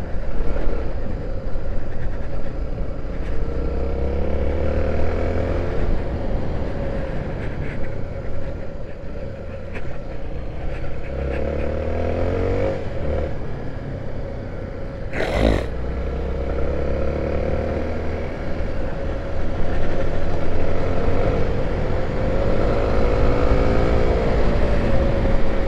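A 250 cc single-cylinder trail motorcycle engine running under load on a dirt road, its revs rising and falling several times with the throttle. There is one sharp knock or clatter about fifteen seconds in.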